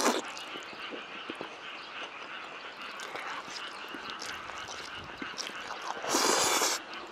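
A person slurping and chewing spicy cold chewy noodles: soft wet chewing and small mouth clicks, then one loud slurp lasting under a second about six seconds in.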